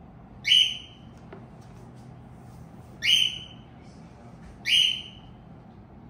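Cockatiel giving three short, loud, whistled calls, about half a second, three seconds and nearly five seconds in.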